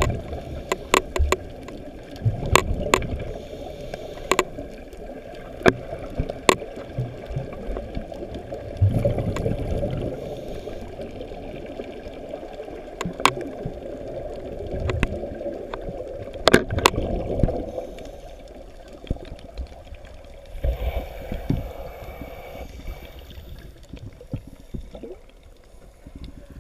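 Scuba regulator exhaust bubbles heard underwater through a camera's waterproof housing: a muffled bubbling rumble that swells every few seconds with each breath, and scattered sharp clicks.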